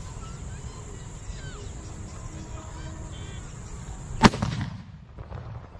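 Homemade PVC-pipe carbide gun firing once: a single sharp bang about four seconds in, as the lighter's spark ignites the acetylene made from calcium carbide and water, with a short echoing tail.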